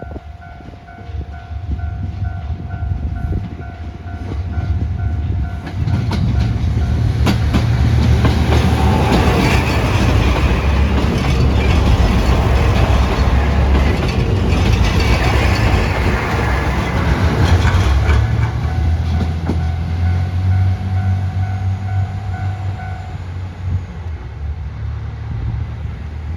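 Level crossing warning bell ringing in a steady repeating pattern while a diesel sightseeing train passes through the crossing. Its engines run and its wheels clatter over the rail joints, loudest in the middle. The bell stops near the end while the train's engine drone carries on.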